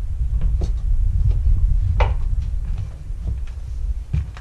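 A few sharp knocks and clunks from a Kubota mini excavator's cab door and frame as someone climbs out, over a low, uneven rumble.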